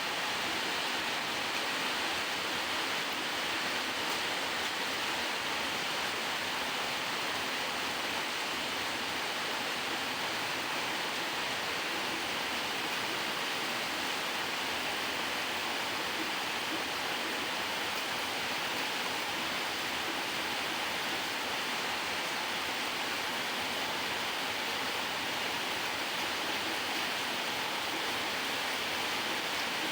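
Steady rain, an even hiss that never lets up.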